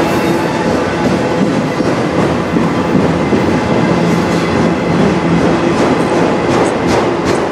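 Freight train of autorack cars rolling past close by, a steady loud rumble of wheels on rail with clicks from the wheels crossing rail joints, coming more often near the end.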